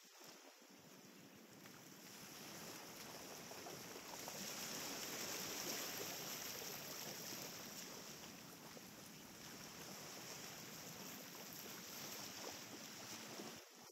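Small waves washing onto a sandy beach: a soft, even hiss of surf that swells about five seconds in and then eases.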